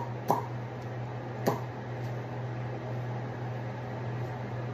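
A steady low hum, like an appliance or fan running, with two short clicks in the first second and a half.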